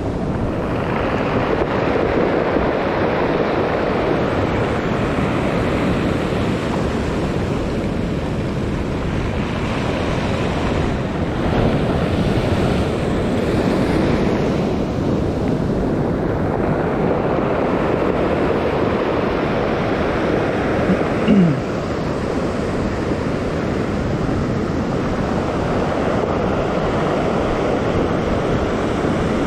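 Surf breaking and washing up over a pebble beach, the noise swelling and easing with each wave, with wind buffeting the microphone. A short falling squeak is heard about two-thirds of the way through.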